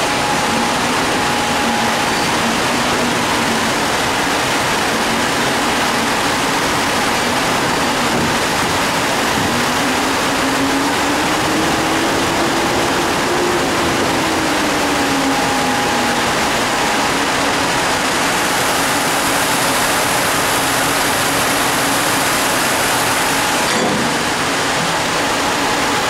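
EP09 electric locomotive standing at the platform with its cooling blowers running: a loud, steady rush with a hum under it. About a third of the way in, the hum slowly rises in pitch and sinks back over several seconds.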